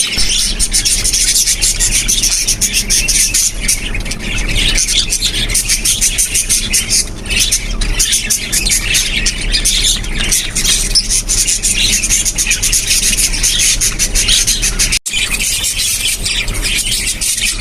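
A flock of small pet parakeets chattering: dense, rapid high chirps and squawks overlapping without a break. It cuts out for an instant about fifteen seconds in.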